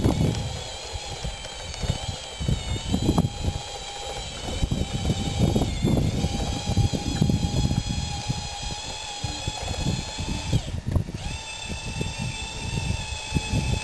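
Radio-controlled scale bulldozer's electric drive motors and gearboxes whining as it tracks along and pushes dirt, the pitch wavering as it speeds up and slows, with a short break about eleven seconds in. An uneven low rumble runs underneath.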